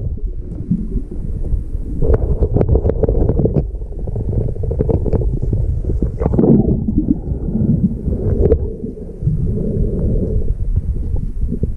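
Muffled water sound picked up by a camera held underwater: a low rumbling and gurgling with many short clicks and knocks scattered through it.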